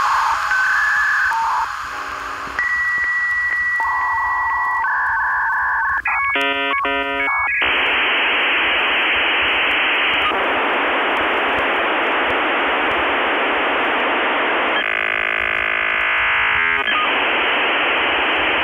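Dial-up modem connecting: a string of dialing tones and a steady high answer tone, then a brief screech of many tones about six seconds in, giving way to a long hiss of static. It all sounds as if it comes down a narrow telephone line.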